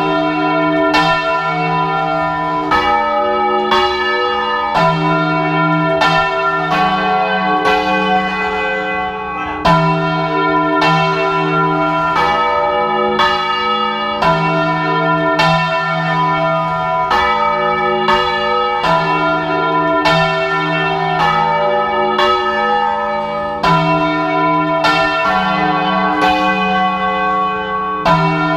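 Several church bells being swung full circle by hand (Spanish-style volteo), striking continuously in a fast, overlapping peal, heard close up inside the bell chamber.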